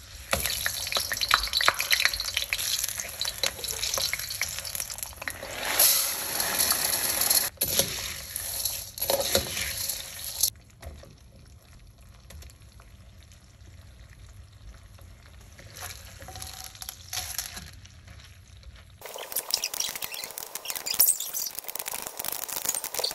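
Hot oil sizzling in a wok with a pineapple slice frying in it, loud for about ten seconds, then much quieter. About 19 s in, loud sizzling returns with rapid crackles as popcorn kernels begin to pop in the oil.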